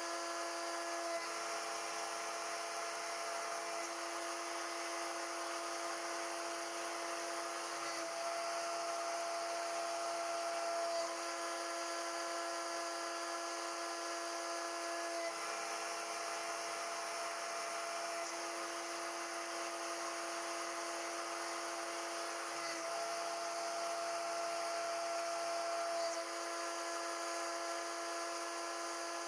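High-speed spindle of a CNC-Step High-Z CNC router running a small end mill through metal plate under coolant spray: a steady whine whose tones shift in strength every few seconds.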